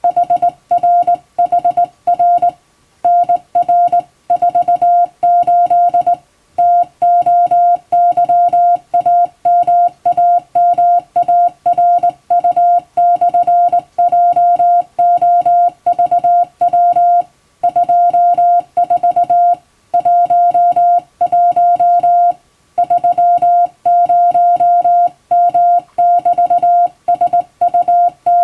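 Hand-sent Morse code: a single steady beep tone keyed on and off in dots and dashes, with short gaps between letters and longer gaps between words, sending English-alphabet Morse as telegram text.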